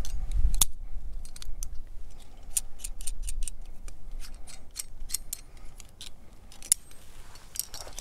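Steel carabiners clicking and scraping on a bolted steel cable as they are unclipped and re-clipped past an anchor. It is a run of sharp, irregular metal clicks, the loudest about half a second in and near the end.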